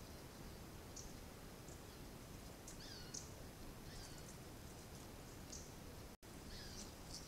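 Faint, scattered bird chirps and short downward-gliding calls over a steady background hiss, with a momentary cut-out of all sound about six seconds in.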